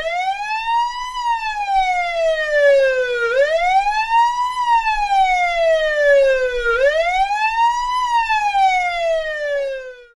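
Police siren wailing: its pitch rises quickly, then falls slowly, in three even cycles of about three and a half seconds each. It stops abruptly near the end.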